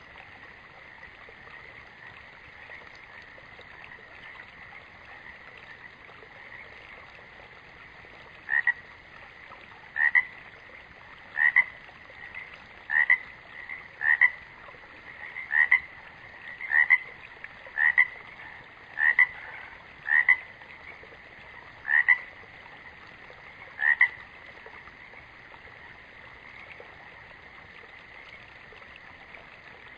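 Animal-like outdoor ambience: a steady hiss with a constant high tone. From about eight seconds in comes a run of twelve short, loud calls, roughly one every second and a half, which stops a few seconds before the end.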